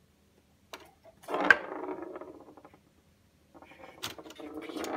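Tabletop foosball game clattering as a cat paws at it: knocks and a metallic rattle of the rods and player figures, the loudest knock about a second and a half in, then more knocking near the end as the cat steps onto the table.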